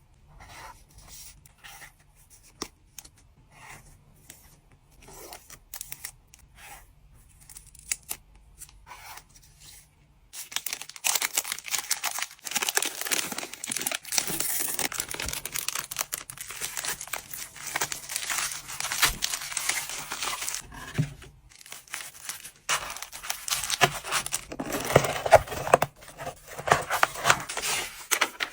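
Packaging material handled by hand: light scratchy rubbing strokes at first, then from about ten seconds in, loud continuous tearing and crinkling.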